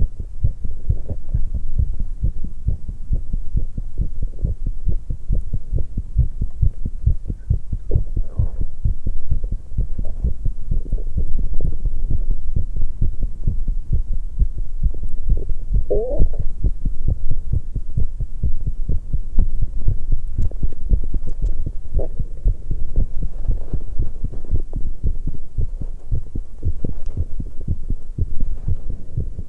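A young woman's heartbeat, fast and pounding after exercise: a rapid, steady run of low beats. About halfway through, a short wavering gurgle from her stomach sounds over the beats.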